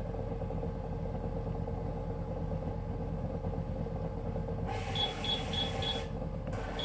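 A Silent Partner Smart tennis ball machine hums steadily. About two-thirds through, it starts beeping rapidly, about four high beeps a second, in two runs with a short break, as its elevation is raised and lowered from the remote.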